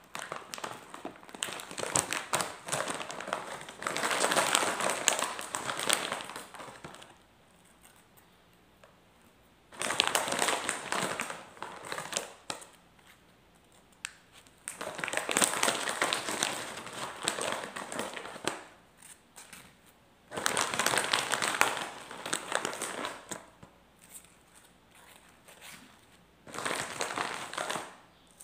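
Potato crisp packet crinkling and rustling as crisps are pulled out by hand, in about five bursts of a few seconds each with short quiet gaps between.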